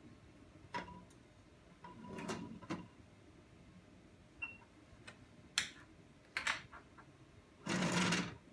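Glass filter crucible handled and set down on an analytical balance, giving light clicks and knocks, with a single short beep from the balance's touch display about four and a half seconds in. More clicks follow, then a louder scrape lasting about half a second near the end, as the balance's glass draft shield is worked.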